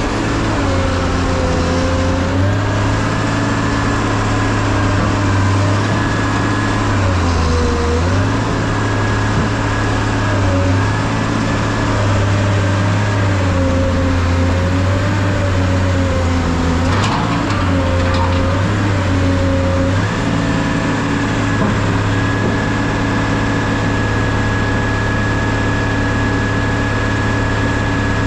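A heavy engine runs continuously, its pitch wandering up and down as the load or throttle changes, then settles to a steady speed about two-thirds of the way through.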